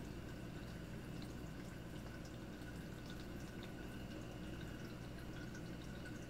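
Tap water running steadily into the wash tub of a twin tub washing machine as it fills, with a faint high, steady whistle over the flow.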